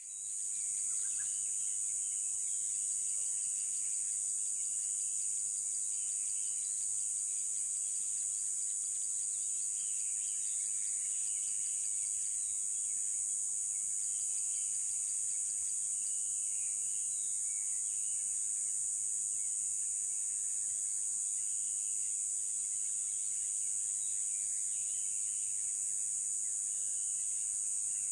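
Steady, high-pitched insect chorus that holds unbroken throughout, with faint scattered bird calls beneath it.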